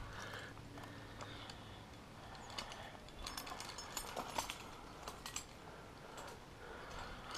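Climbing gear clinking and scuffing while the climber works up rock, with a cluster of light, sharp metallic clicks about three to five seconds in. The gear is cams and carabiners on the harness.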